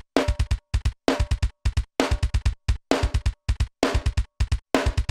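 Metal drum multitrack playing back: fast double-kick strokes with a snare hit about once a second, the snare carrying a metallic ring. The sound is cut off sharply to silence between hits by a noise gate.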